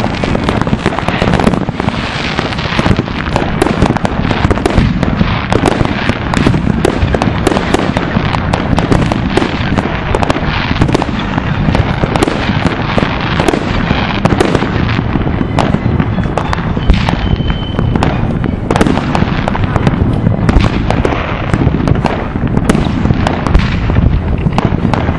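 Fireworks going off in a dense, unbroken barrage: rockets and other fireworks bang and crackle in quick, overlapping succession.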